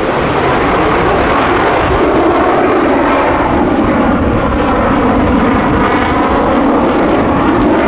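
Eurofighter Typhoon's twin Eurojet EJ200 turbofans at high power as the jet accelerates, a loud, steady jet roar.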